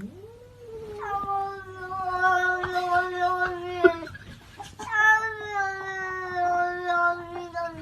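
A cat yowling: two long drawn-out cries of about three seconds each, each sagging slightly in pitch, the second starting about five seconds in.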